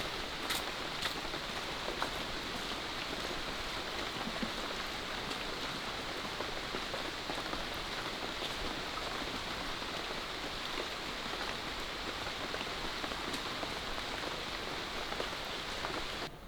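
Steady rain falling, an even hiss with scattered drop ticks, which cuts off suddenly near the end.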